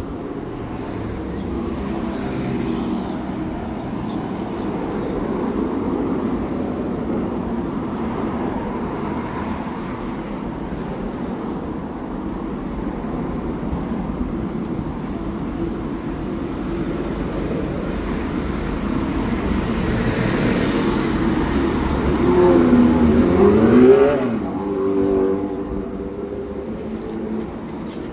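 Road traffic on a city street: a steady hum of vehicles, building to one vehicle passing close near the end, its engine note swinging up and down, then settling into a steadier engine hum.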